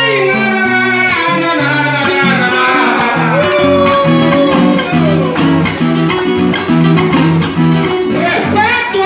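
Latin dance music played live: a man's voice singing into a microphone over a bass line that steps from note to note, with guitar and percussion.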